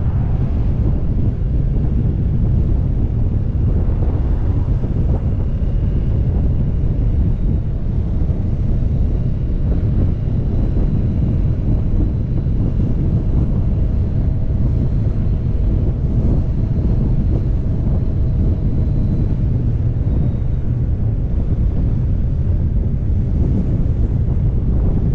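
Steady wind buffeting a microphone mounted on an ATV moving at road speed, with the ATV's engine running steadily underneath.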